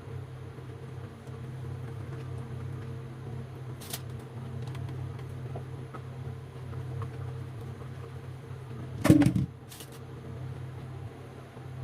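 A steady low mechanical hum, with a short loud clatter about nine seconds in and a few lighter clicks.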